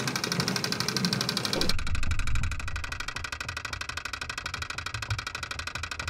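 Hong Kong MTR escalator's rapid, regular mechanical clicking. It is first picked up through an air microphone along with the hiss of the station. Just under two seconds in it switches abruptly to a contact microphone on the escalator's side panel, where the clicking turns duller and bass-heavy, with the high hiss gone.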